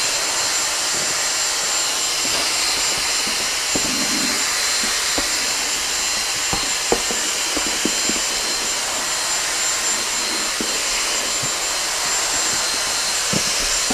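Dyson V6 cordless vacuum running steadily through a flexible hose attachment with a high motor whine, picking up loose styrofoam beads, with scattered small clicks as the beads are drawn into the tube.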